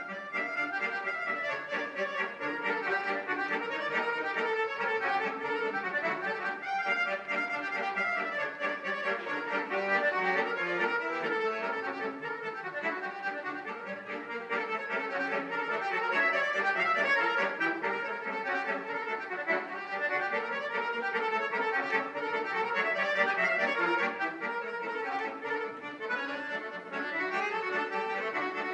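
Solo accordion playing, with melody and accompanying notes sounding together.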